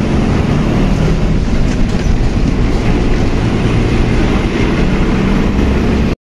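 Steady heavy rumble of a moving bus: engine and road noise heard from inside. It cuts off suddenly near the end.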